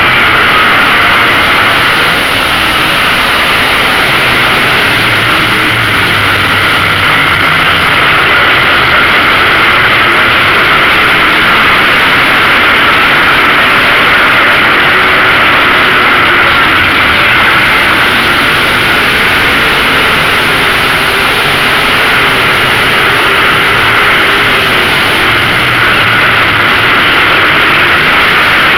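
Lightning Late Model race cars running together on the track, a loud steady blend of many V8 engines, with single engine notes wavering up and down now and then as cars pass.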